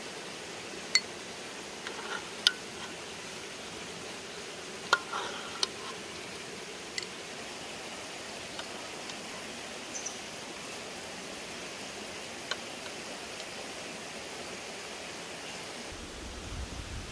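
A metal spoon clinking against a steel pot and a glass bowl, half a dozen sharp clinks spread through the first two-thirds, over the steady rush of a stream. A low rumble comes in near the end.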